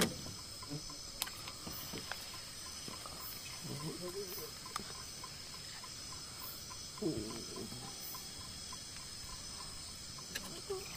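Night chorus of crickets shrilling steadily in several high tones, with a faint regular ticking about three times a second.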